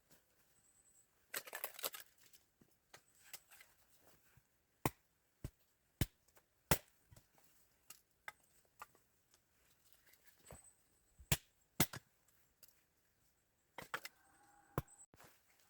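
Wood being chopped: irregular sharp knocks, some close pairs about half a second apart, with a short rustling scrape about a second and a half in.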